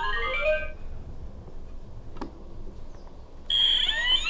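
Electronic toy ATM piggy bank playing a short stepped electronic tune through its small speaker as it accepts the entered code, then a single click about two seconds in. Near the end a louder burst of chirpy, gliding electronic sounds plays as the door knob is turned.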